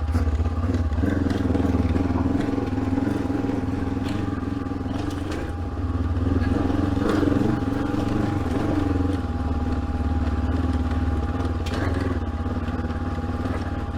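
Honda CB500X's parallel-twin engine running at low, fairly steady revs while the bike is ridden on a dirt trail, with small rises and falls in throttle. A thin steady whine and scattered clicks sound alongside.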